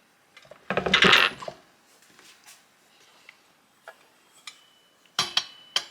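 Metal parts clattering and clinking as a grain mill attachment is handled and fitted to a KitchenAid stand mixer's attachment hub: a loud rattle of knocks about a second in, then a few sharp clicks near the end.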